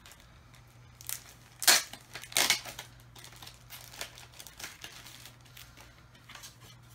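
Packaging crinkling and tearing as a small package is opened by hand: a string of short rustles, the two loudest about one and a half and two and a half seconds in.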